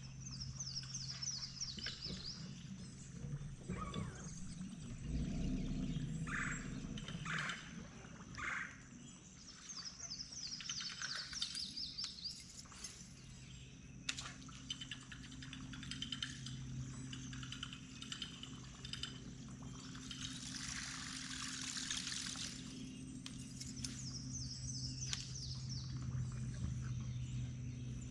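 Songbirds singing, one repeating a quick falling trill every several seconds, over a low steady hum, with a few knocks and splashing sounds.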